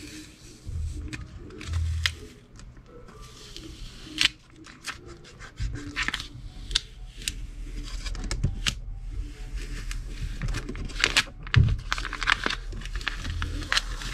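Clear vinyl transfer tape being rubbed down by hand and peeled back off vinyl lettering on a painted sign: irregular scratchy rubbing with crackly peeling and small clicks, busier in the second half.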